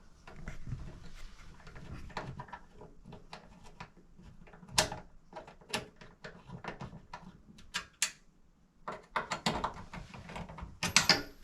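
Scattered light clicks, taps and knocks of hand tools and small hardware being handled while a light fixture is fitted, coming thicker and faster near the end.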